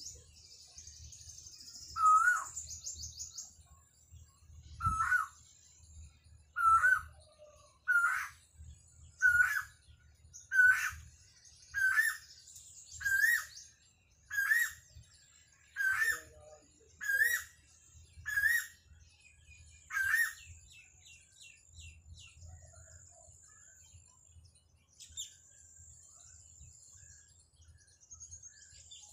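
A bird repeating one short rising call about thirteen times, roughly one call every second and a quarter, the series creeping slightly higher in pitch before it stops about two-thirds of the way in. Thin high chirps from other small birds come and go in the background.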